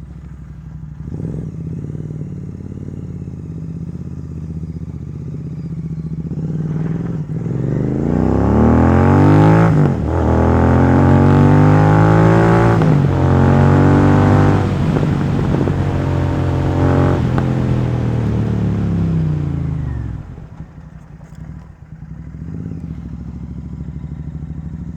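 Royal Enfield GT 650's parallel-twin engine through a loud MotoTorque aftermarket exhaust while being ridden. It pulls up through the revs about seven seconds in, shifts up a few times, holds, then falls back to a lower steady run near the end.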